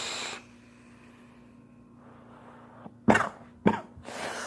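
A steady hiss from a drag on a vape cuts off about half a second in. After a quiet stretch, a person coughs hard three times near the end, the last cough longer, the way someone coughs after a vape hit they are no longer used to.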